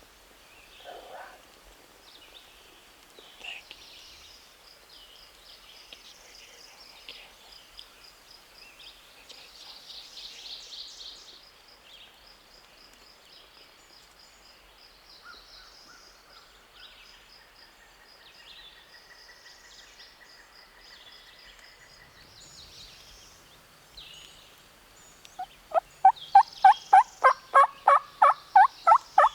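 Wild turkey calling: a loud run of about fourteen quick, evenly spaced notes near the end, over faint songbird chirps.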